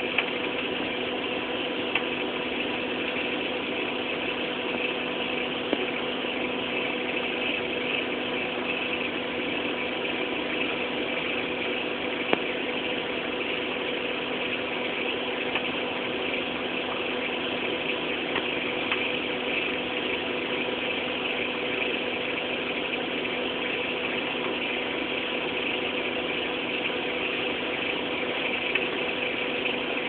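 Microwave oven running: a steady hum with fan noise, broken now and then by a few sharp clicks.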